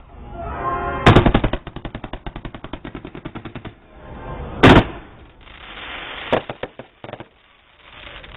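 Fireworks going off: rapid crackling at about ten pops a second, broken by two loud bangs about a second in and about halfway through, then a hissing burst and a further sharp bang.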